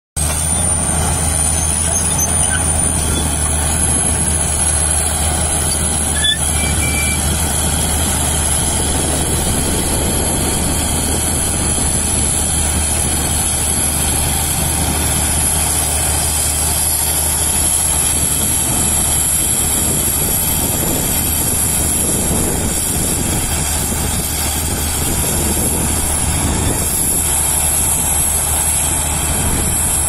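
Shantui SD22 crawler bulldozer's diesel engine running steadily while it pushes topsoil, with a constant high-pitched whine over the engine's low hum; the whine climbs slightly in the first few seconds, then holds.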